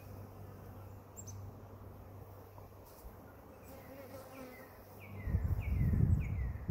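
Honeybee swarm buzzing, with a steady low hum that turns much louder and more fluttering near the end as the cut branch carrying the clustered swarm is brought up close.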